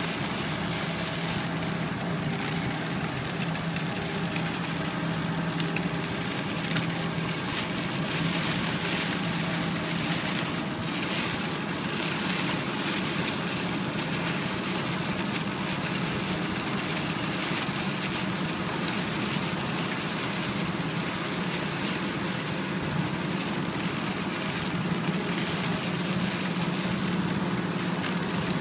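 Car driving on a wet road in the rain, heard from inside the cabin: a steady engine hum under an even hiss of tyres on wet tarmac and rain.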